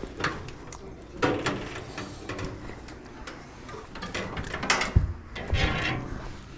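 Irregular knocks, clicks and scrapes of hands working tools and metal parts, the loudest knocks about a second in and around five seconds in.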